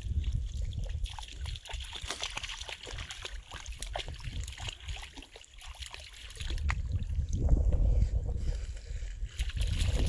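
A Border Collie puppy wading in a shallow stream, water sloshing and splashing around its legs in short irregular splashes. A low rumble runs underneath and swells in the second half.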